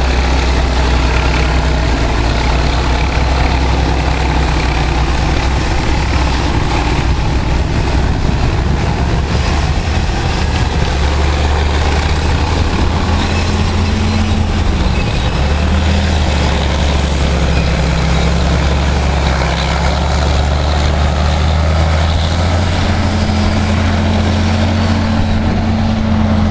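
Heavy diesel engines of earthmoving machines, a Caterpillar 630B scraper and D7E bulldozer, running steadily, their pitch shifting slightly partway through and again near the end, with wind noise over the microphone.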